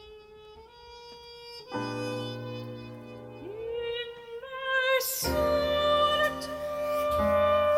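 Operatic classical music played from a vinyl record through Quad 57 electrostatic loudspeakers. A quiet held line opens it, the orchestra comes in about two seconds in, and the music swells louder about five seconds in.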